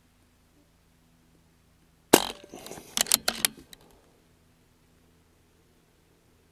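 A BARRA 1100Z .22 PCP air rifle fires a single shot, a sharp report about two seconds in, followed about a second later by a few quick mechanical clicks as the action is cycled for the next pellet.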